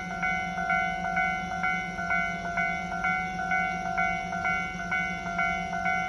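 Japanese railway level-crossing warning bell ringing in an even rhythm, about two strikes a second, over a steady low hum. The crossing is closed: the bell is warning of an approaching train.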